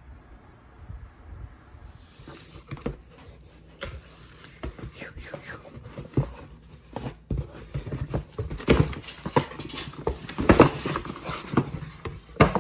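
Dog panting and snuffling, mixed with short knocks and rustles.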